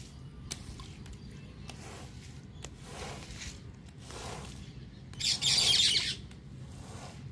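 Long-handled stiff-bristle push brush scrubbing a soapy, thick-pile carpet in repeated back-and-forth strokes, a swish about once a second, with one louder, longer stroke near the end.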